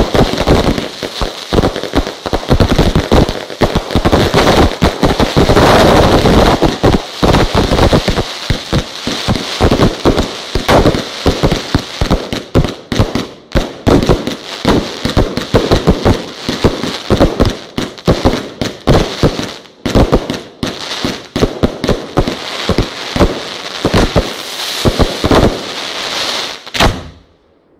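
Fireworks display fired close overhead: rapid, nearly continuous bangs and crackle from aerial shells and multi-shot cakes. The barrage dies away about a second before the end.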